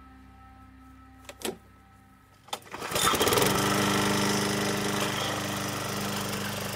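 Push mower's small gasoline engine pull-started with its newly replaced recoil starter rope: a short sound about a second and a half in, then it catches about two and a half seconds in and runs steadily.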